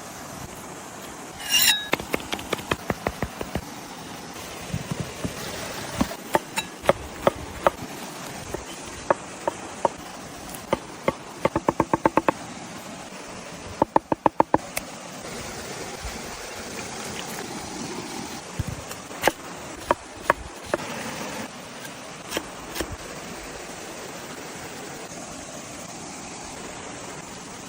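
Sharp knocks and taps of food preparation, irregular at first, with two quick runs of rapid even strokes near the middle, over a steady background noise.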